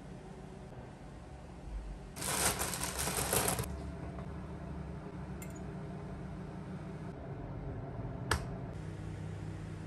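A metal fork stirring egg mixture in a glass baking dish: a quick run of clinks and scrapes lasting about a second and a half. Later comes a single sharp tap of the fork on the glass, over a low steady hum.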